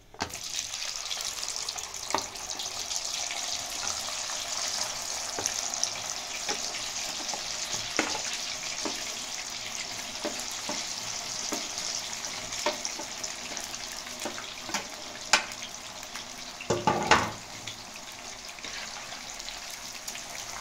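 Raw potato fries deep-frying in hot oil in an aluminium pot: a steady sizzle that starts suddenly as the first batch goes in. A metal spatula clinks against the plate and pot now and then, with a louder clatter near the end.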